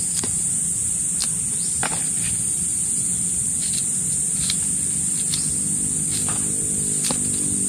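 A steady high-pitched drone of insects, with faint irregular clicks from a kitchen knife slicing a long green chili held in the hand.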